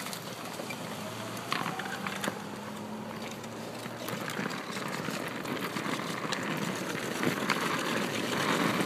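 Small wheels rolling over an asphalt road: a rough rolling hiss that grows steadily louder, with scattered sharp clicks and knocks.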